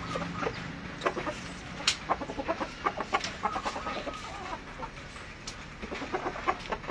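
Chickens clucking in runs of short, quick clucks, thickest about a second in and again near the end, with a few longer pitched calls in between.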